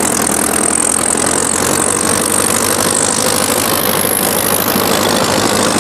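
Sonalika DI-55 tractor's diesel engine running steadily under heavy load, driving an 8-foot rotavator through deep ploughed soil with its rear wheels dug in.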